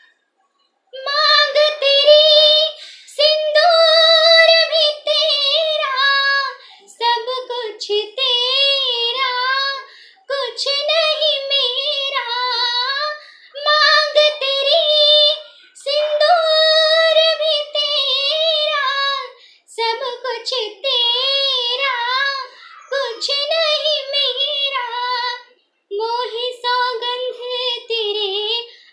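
A young woman singing a Hindi film song solo and unaccompanied, in held phrases with a wavering vibrato, breaking briefly for breath between them. The singing starts about a second in.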